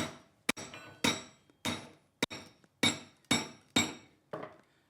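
Blacksmith's hammer tapping hot leaf-spring steel on an anvil, about ten ringing metallic strikes at roughly two a second, setting a slight offset into a tong half.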